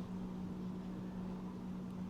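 Faint steady low hum over a soft background hiss, with no distinct events.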